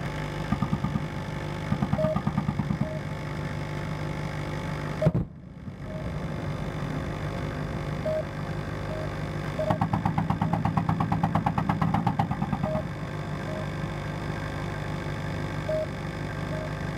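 Machine-gun fire from M1 Abrams tanks on a live-fire range: short bursts, then one longer burst of about three seconds near the middle, at roughly ten rounds a second. A steady engine hum runs underneath, and a single sharp bang about five seconds in is the loudest sound.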